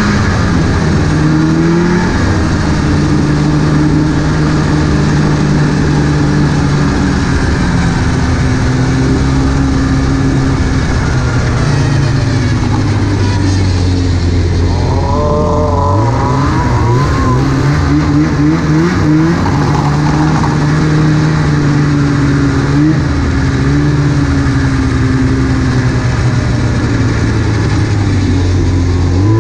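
Snowmobile engine running steadily at trail-cruising speed. Its pitch dips about halfway through as the throttle eases, then climbs back up as it speeds up again.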